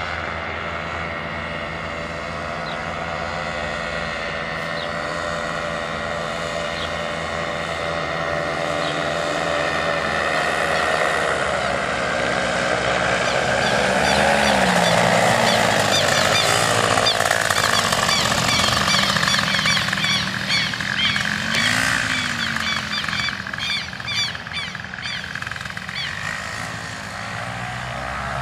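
Ultralight trike's engine and propeller droning in flight, growing louder to a peak around the middle as it passes close overhead. The pitch bends up and down twice before easing off. Short high chirps sound through the last third.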